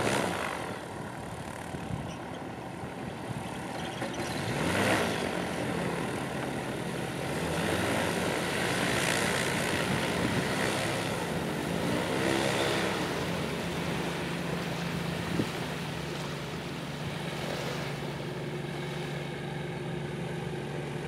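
Propeller engines of a SeaBear twin-engine amphibious light aircraft running with a steady drone, swelling in loudness about five seconds in.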